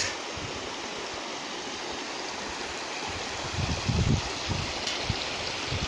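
A small stream rushing steadily over stones in its channel, an even wash of water noise, with a few low thumps around the middle.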